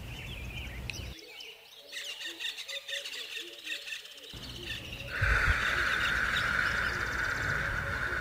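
Nature ambience of birds chirping. About five seconds in, a steady, louder hiss joins and holds.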